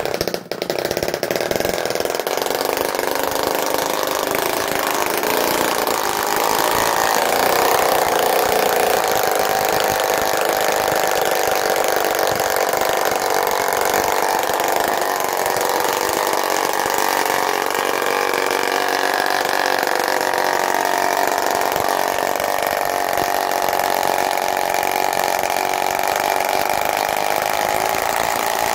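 1946 Fleetwind-60 .60-size spark-ignition model engine running steadily, spinning its propeller at a little over 3,000 rpm.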